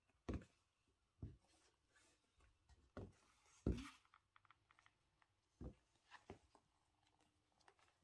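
Footsteps in heavy sandals on a hard floor: about six separate dull knocks at uneven spacing, roughly a second apart.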